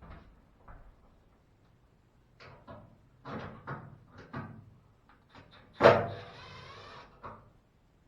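A front-loading washing machine being shifted by hand: a series of knocks and bumps, then a loud bang a little past halfway, followed by about a second of scraping and one last knock.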